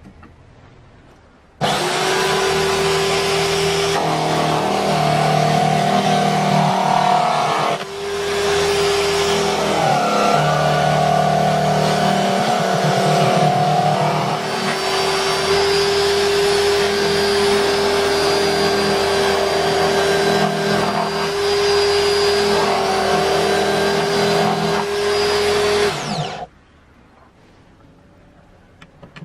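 Electric drill motor running steadily under load with a constant whine. It starts a little under two seconds in, dips and picks up again about eight seconds in, and stops a few seconds before the end.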